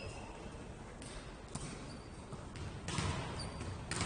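Indoor court game sounds: a ball thudding on the floor, short high shoe squeaks, and a few sharp knocks, the last two near the end.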